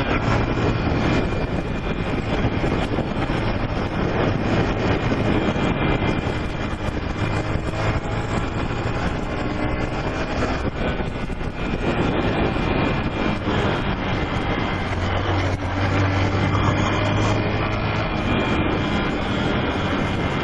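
Honda CG 125 Fan's single-cylinder engine running at speed under wind rush on the microphone. The engine's low hum grows stronger about three-quarters of the way through.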